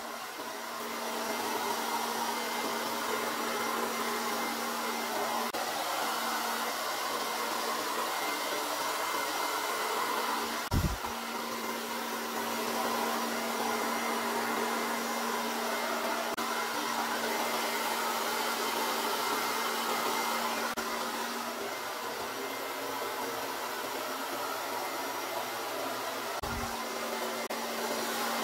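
Hair dryer blowing steadily, a continuous rush of air over a steady motor hum, used to blow out wet acrylic paint in the bloom technique. A brief low thump about eleven seconds in and another near the end.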